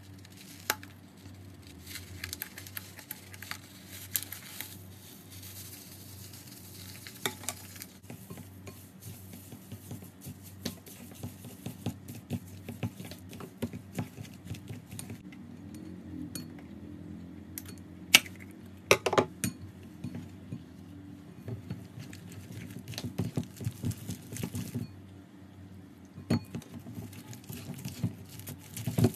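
Foam beads spilling from a balloon cut open with scissors into a glass bowl, then a spatula stirring the beads into clear slime: a steady run of crackling clicks and small pops, with taps and scrapes on the glass and a few sharper clicks about two thirds through.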